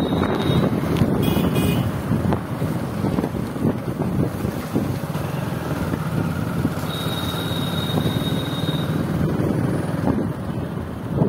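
Wind buffeting the microphone from a moving vehicle, with steady engine and road noise underneath. A thin, high, steady tone sounds for about two seconds past the middle.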